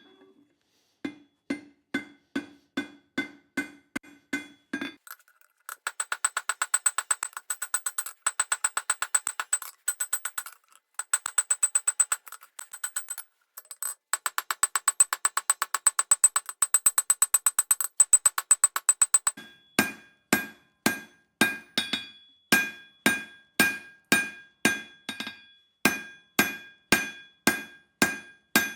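Hammer blows ringing on the anvil while forging leaf-spring steel: blows about two a second, then a long run of fast, lighter, brighter-ringing blows, then steady blows about two a second again.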